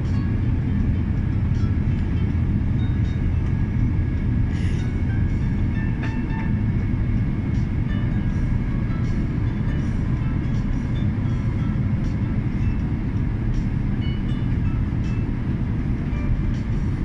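Steady low rumble of jet engines and rushing air heard inside an airliner cabin in flight, with a faint steady high whine above it.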